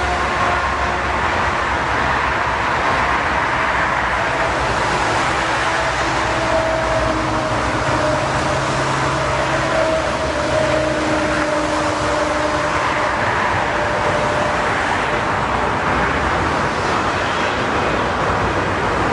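Steady roar of a large jet airliner's engines, with faint tones drifting slowly lower partway through.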